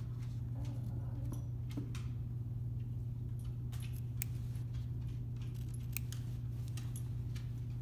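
Small scissors snipping through fabric in a run of short, irregular clicks as they cut open a double welt pocket and into its corners, over a steady low hum.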